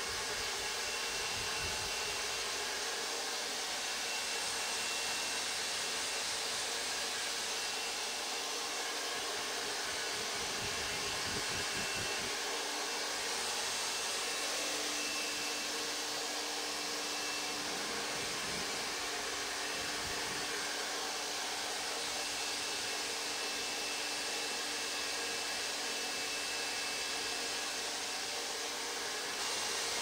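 Hand-held hair dryer blowing steadily at a constant level.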